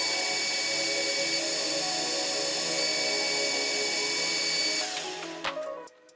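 Background music over a steady, high power-tool whir. Both fade away about five seconds in, with a single sharp knock just before the end.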